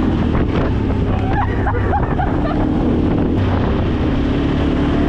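ATV engine running steadily under way, with heavy wind rumble on the microphone.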